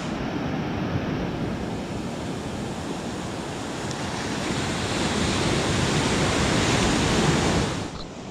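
Ocean surf washing onto a beach, a steady rushing noise with wind on the microphone. It swells a few seconds in and drops sharply near the end.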